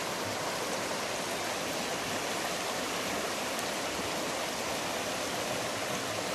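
Shallow, fast river rushing steadily over stones in a riffle.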